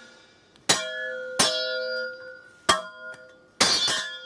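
Foley sword clashes: a metal prop struck about five times, the last two close together near the end, each hit ringing on with a bell-like metallic tone that fades.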